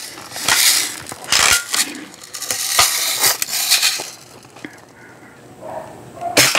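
A Daisy Red Ryder BB gun being handled: a run of metallic clinks and rattles, then one sharp snap near the end.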